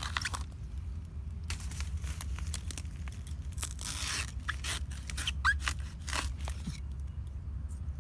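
Knife cutting into the base of a Taiwan sweet bamboo shoot among dry leaf litter: a run of short crunches, scrapes and rustles over a steady low rumble.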